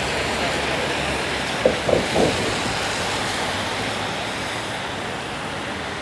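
Steady hiss of rain and city traffic on a wet street, with tyres swishing over wet pavement. About two seconds in, three short pitched sounds stand out above the hiss.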